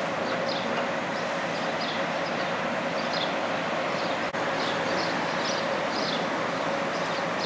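Vintage electric tram moving slowly, a steady hum and rumble, while small birds chirp in short, high, repeated calls. A brief click comes about four seconds in.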